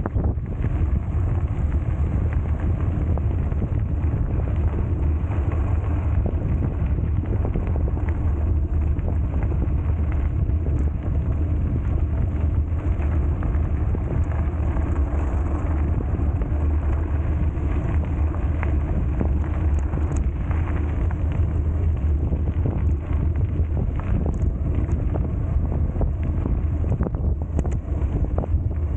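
Steady wind rush and low rumble on the microphone of a camera riding on a mountain bike, with a few scattered clicks and rattles.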